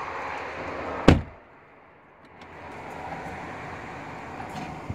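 Driver's door of a 2018 Ford Expedition pulled shut with a single solid thump about a second in. The outside noise drops away once it is closed.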